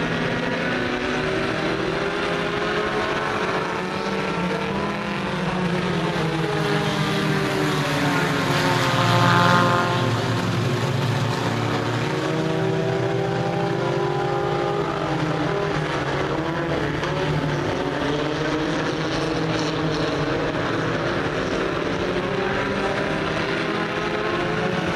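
A pack of U-car class dirt-track race cars running laps, several engines rising and falling in pitch as they go round the oval. They grow loudest about nine seconds in as cars come by.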